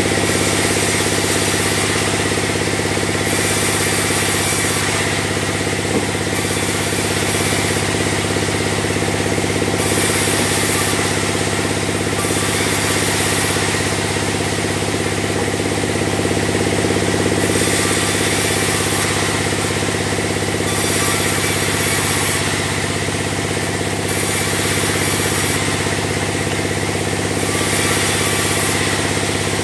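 Log band sawmill running steadily with a constant low hum while its blade saws logs into square beams. A high hiss switches on and off every second or two.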